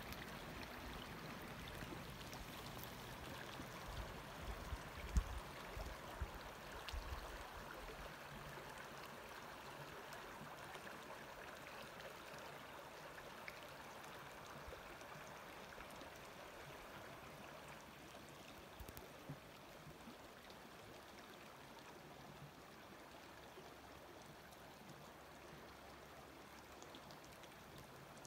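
Small snow-banked creek flowing with a faint, steady rush that slowly fades. A few low thumps come about four to seven seconds in.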